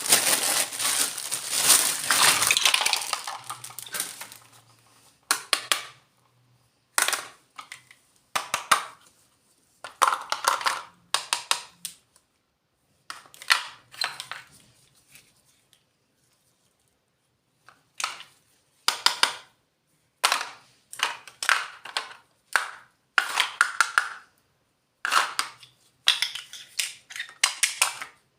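Packaging being crinkled and opened for a few seconds, then short, separate bursts of crinkling, rustling and clicking as small toy pieces are unpacked and handled, with brief pauses in between.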